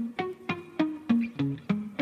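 Dance music playing: a melody of short plucked-string notes, about three a second.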